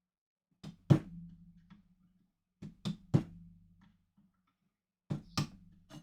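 Hammer blows on metal in three quick pairs, about two seconds apart, each pair followed by a short low ring.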